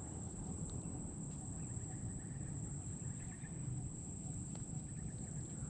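Quiet outdoor ambience: a steady high-pitched whine with a low, even rumble beneath it and a couple of faint clicks.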